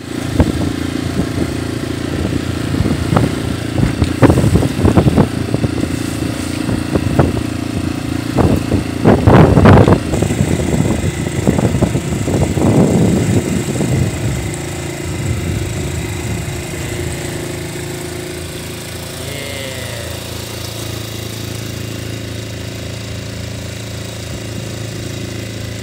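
Small sailboat's engine running steadily, with irregular louder rushes of noise through the first half that ease off about fourteen seconds in.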